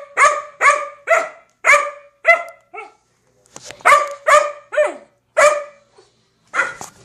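Black Labrador retriever puppy barking repeatedly in short, high barks, about two to three a second, with a brief pause near the middle before a second run of barks, one sliding down in pitch.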